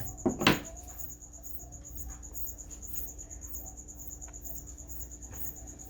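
A cricket chirping, an evenly pulsing high trill, with a brief sharp noise about half a second in and a few faint ticks after it.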